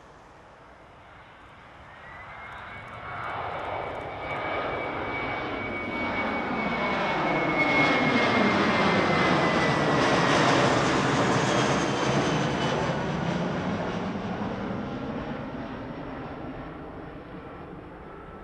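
Twin jet engines of a Spirit Airlines Airbus A320-family airliner at full power in a go-around, climbing away and passing overhead. The roar builds, is loudest about halfway through as the jet goes over, then fades away, with a high whine that slowly sinks in pitch.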